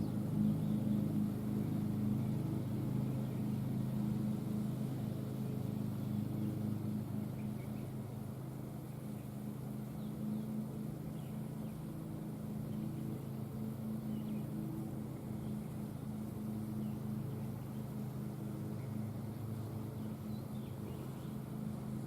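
Engine running steadily at idle: an even low hum with no change in pitch.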